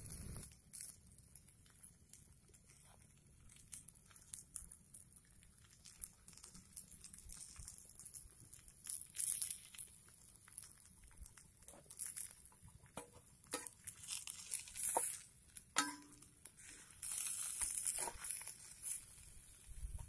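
Chicken burger patties frying in a pan over an open wood fire: irregular crackles and pops, with several louder stretches of sizzling hiss.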